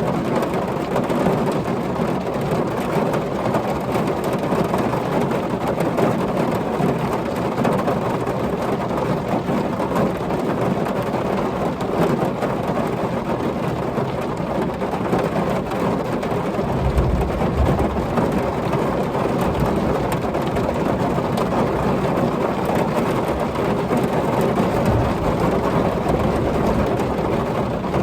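Heavy rain falling steadily, with a low rumble of thunder about two-thirds of the way through.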